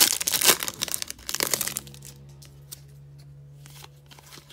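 Foil trading-card pack wrapper crinkling and tearing as it is ripped open, loud for about the first two seconds, then quieter with a few light rustles of the cards.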